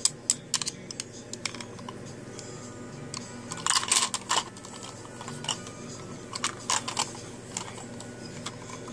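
Irregular sharp clicks and taps from a cockatoo's beak working at hard plastic, with a dense flurry about four seconds in and another near seven seconds.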